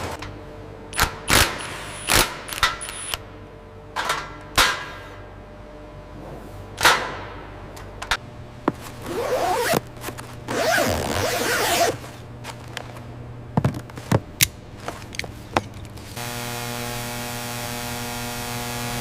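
Sharp mechanical clacks and knocks at irregular intervals, with a longer whirring hiss in the middle. Near the end a steady electronic drone sets in.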